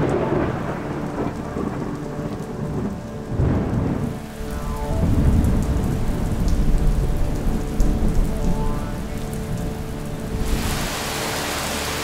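Thunderstorm recording: rolling thunder rumbles over steady rain, with a big roll about three and a half seconds in. About ten and a half seconds in, it changes to a steadier, denser rain hiss.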